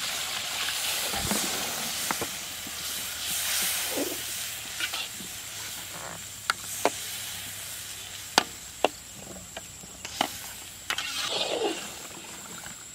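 Spiced gravy sizzling in a hot iron kadai as tamarind water goes in and is stirred, with a steady hiss. A long perforated metal ladle scrapes round the pan, and in the second half it knocks sharply against the iron about five times.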